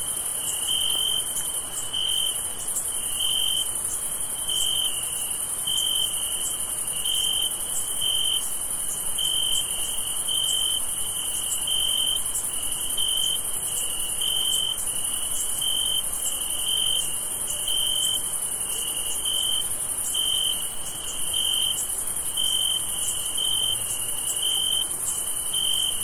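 Crickets chirping at night: one cricket's short, high chirps repeat evenly, about three every two seconds, over a steady, high-pitched trilling insect chorus.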